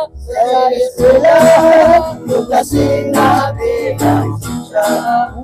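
A group of men singing together to a strummed acoustic guitar.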